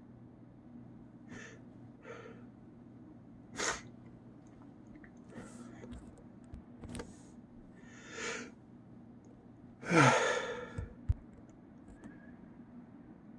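A man's breaths catching several times as a sneeze builds, then one loud sneeze about ten seconds in, its voiced part falling in pitch. A sharp click follows right after.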